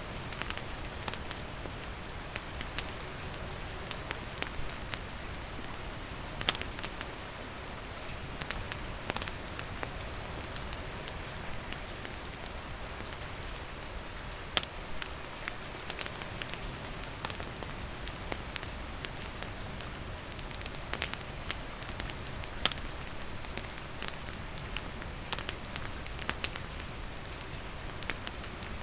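Steady rain falling on surfaces, mixed with a campfire's wood crackling in irregular sharp pops.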